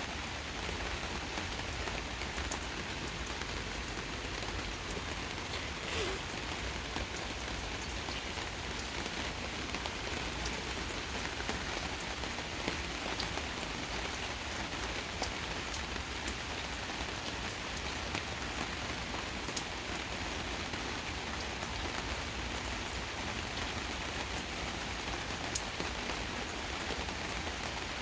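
Steady rain falling, with a dense even hiss and scattered individual drops ticking on a surface.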